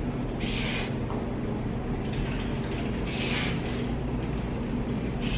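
Hand spray bottle misting scalp protector onto hair in two short hissing sprays, about half a second in and about three seconds in, with a third starting at the very end. A steady low hum runs underneath.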